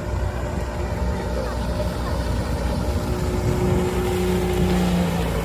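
Outdoor wind rumbling and buffeting on the microphone, with a faint low hum in the second half and faint distant voices.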